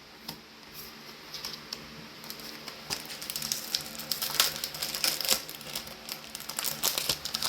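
Crinkling and light clicking of trading cards and their plastic-foil booster packaging being handled. It is quiet at first and becomes busy from about three seconds in.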